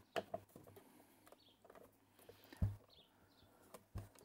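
Faint scattered clicks of a Phillips screwdriver turning the small back-case screws of a plastic radio-control transmitter, with the case being handled. One louder knock comes about two and a half seconds in.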